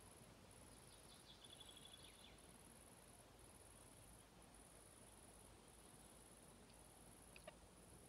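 Near silence with a faint, high-pitched insect chirring in regular pulses about once a second. A short buzzy trill comes about a second in.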